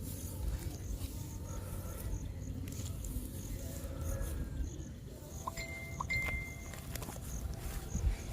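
Insects chirping in a steady, regular pulse, about two chirps a second, over a low rumble. A couple of short, clear high tones sound in the middle.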